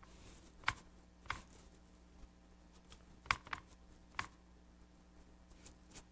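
Fingers pressing and smoothing damp newspaper pieces down onto a leather-hard clay tray: a brief soft rustle, then about five faint light taps and clicks spread over a few seconds.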